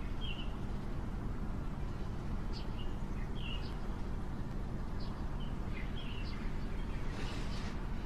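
Small birds chirping now and then, short separate calls, over a steady low background hum.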